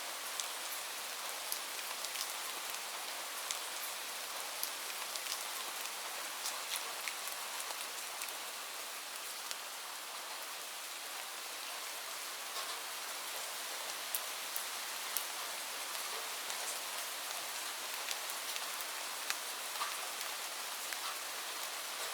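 Steady rain falling, a dense hiss with many separate drops ticking sharply on a hard surface.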